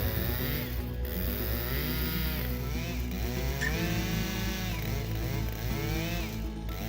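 Large gas chainsaw running under load, its engine pitch repeatedly sagging and rising again as it cuts.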